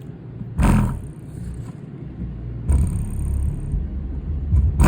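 Infinity BU-1 8-inch subwoofer driver, out of its box, playing deep bass in free air. It comes in surges, about half a second in, around three seconds in and again at the end, with a faint hiss and buzz above the bass. The owner hears something weird in its sound.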